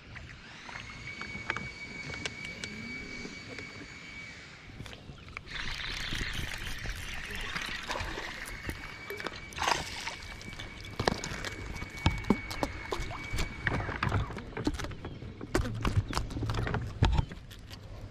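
A hooked largemouth bass splashing and thrashing at the surface beside a bass boat, over a steady high whine that breaks off briefly about five seconds in. Near the end come a run of knocks and thumps on the boat.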